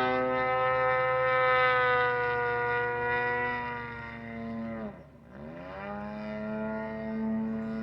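Radio-controlled model airplane engine running in flight: a steady, high buzzing note that slowly sags in pitch, drops sharply about five seconds in, then climbs back up as the throttle or the plane's path changes.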